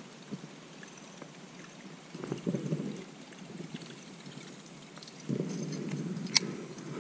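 Handling noise from a baitcasting reel and rod worked close to the microphone: low rustling rumble about two seconds in and again from about five seconds on, with one sharp click near the end.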